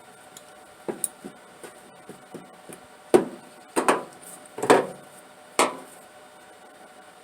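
Hand tools knocking and clattering against metal while spark plugs are worked on: a few light clicks, then about five louder sharp knocks between three and six seconds in.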